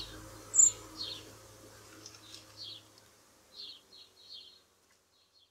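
Garden birds chirping: a string of short, quick high chirps, with one sharp, higher peep about half a second in that stands out as the loudest, thinning out and stopping shortly before the end.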